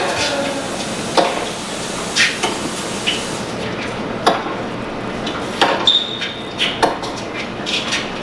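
Tennis ball struck back and forth in a rally on a TV broadcast: sharp pops about once a second over steady crowd and broadcast hiss, with a brief high squeak around six seconds in.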